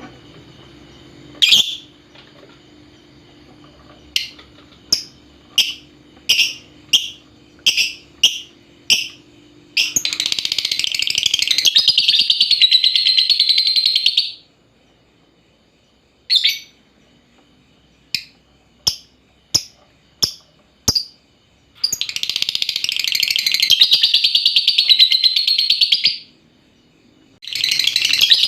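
Lovebird calling: runs of sharp single chirps, several a second apart, broken by long, continuous high rattling chatter (the 'ngekek') lasting about four seconds each, heard twice and starting a third time near the end. A lure call of the kind played to prompt young lovebirds to answer and start singing.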